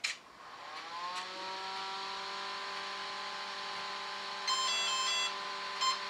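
Brushless RC car ESC powered up with its set button held: a steady electrical hum comes up and settles about a second in, then a short tune of stepped high beeps plays through the motor, with one more brief beep near the end, the signal that the speed controller has entered programming mode.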